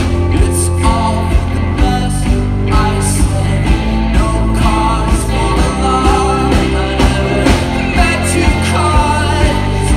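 Live indie rock band playing: electric guitars, bass guitar, keyboards and drums with a steady beat of about two hits a second, with singing over it.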